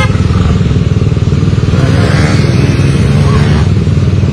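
Motorcycle engine running with a fast, steady rumbling beat. A voice calls out briefly about two seconds in.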